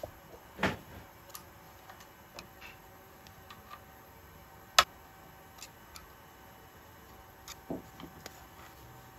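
Scattered small clicks and knocks of a hand tool and hands working the screws on a CNC router's metal spindle mount, with one sharp click about five seconds in.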